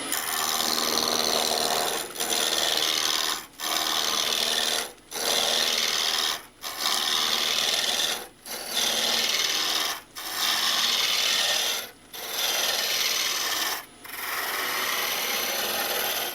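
Roughing gouge cutting a spinning Iroko blank on a wood lathe, rounding it down: a steady rasping hiss in repeated passes of about one and a half to two seconds, with short breaks between them, about eight in all.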